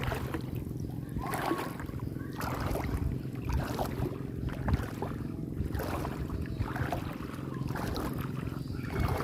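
Footsteps wading and splashing through shallow seawater at a walking pace, about one step a second, over a steady low rumble.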